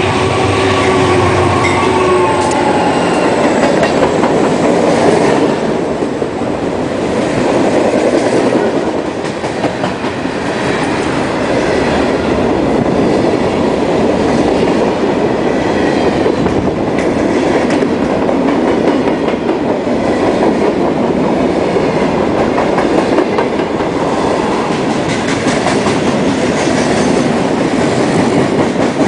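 Freight train rolling past at close range: the locomotive horn trails off about two seconds in, then a steady clatter of freight car wheels over the rail joints, with a faint squeal of wheels on rail.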